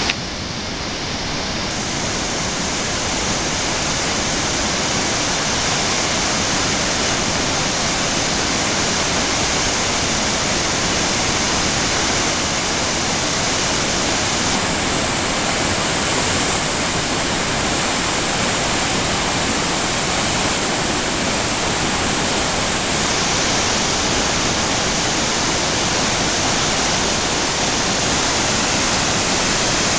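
Flood-swollen creek pouring through a narrow rock gorge as a waterfall of whitewater, running high after heavy rain: a loud, steady rushing that does not let up.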